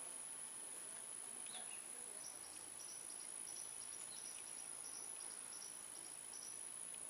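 Open-air riverbank ambience with a steady high-pitched whine. A short bird call comes about one and a half seconds in, then a run of quick, high chirps lasts until near the end.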